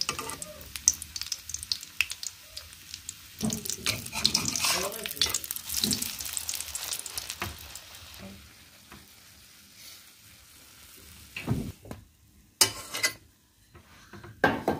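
Pitha batter frying in hot oil in a wok, a dense sizzling crackle that is busiest a few seconds in and dies down in the second half, with a metal spatula scraping and turning it in the pan. A few sharp knocks near the end.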